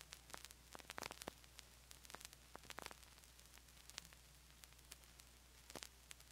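Faint vinyl surface noise in the silent groove between two tracks of an LP: scattered soft clicks and pops over a steady low hum.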